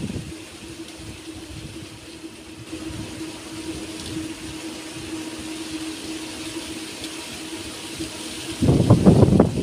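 Wind buffeting the microphone in uneven gusts over a steady hiss and a faint, steady low hum. A stronger gust hits the microphone near the end.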